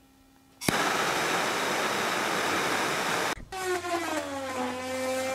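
A sudden, steady rushing hiss for about two and a half seconds, then a sustained whistle-like tone with overtones that sags slightly in pitch.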